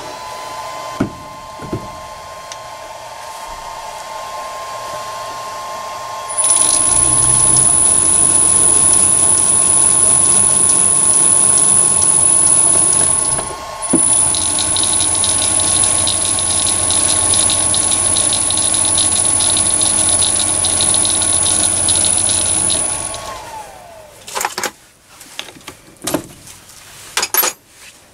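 Mini lathe running under power with a steady motor whine while a 1/8 BSP tap cuts a thread in a brass part. It gets louder with a high whine about six seconds in, cuts out for a moment near the middle and starts again, then winds down about two-thirds of the way through, followed by a few clicks and knocks of metal being handled.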